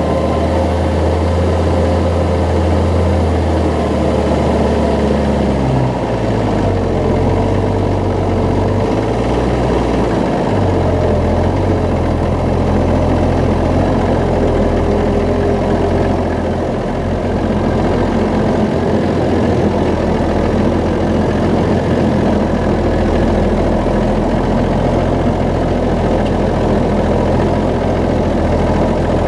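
New Holland T7060's six-cylinder turbo diesel engine running steadily while ploughing. Its pitch shifts a few times in the first third, then holds.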